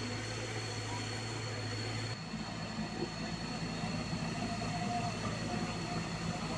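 Heavy diesel engine running steadily. About two seconds in, its note changes abruptly, as at an edit or a change in engine speed.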